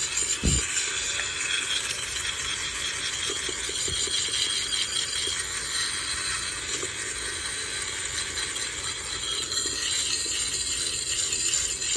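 Dremel rotary tool with a wire brush attachment running continuously against metal, scrubbing surface rust off an old toy tractor with a steady, high-pitched grinding hiss.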